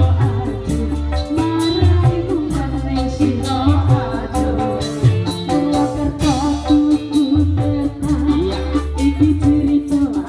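Live Indramayu reog band playing: kendang hand drums, keyboard and drum kit over a steady bass beat, with a woman singing.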